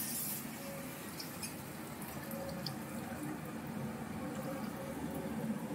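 Water is poured into a pan of fried spice paste made with whisked yoghurt, and the mixture then simmers steadily, with a few small ticks. This is the stage where the fried masala is thinned with a little water to make the curry's gravy.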